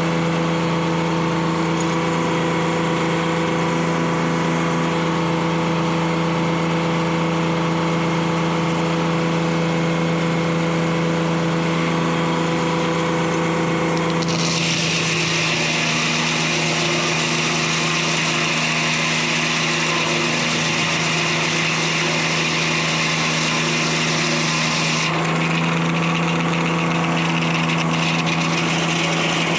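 Detroit Diesel 3-71 two-stroke diesel running steadily, driving a 52-inch circular sawmill blade. About halfway through, the blade cuts into a cedar log for about ten seconds, and the engine's note shifts as it takes the load. Then the blade runs free again.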